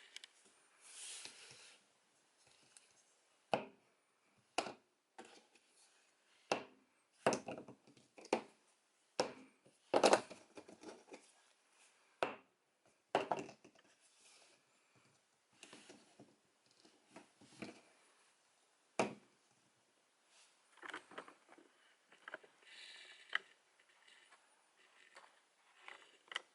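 Irregular light clicks and knocks, one or two a second, from small plastic Dino Fury Key toys being handled.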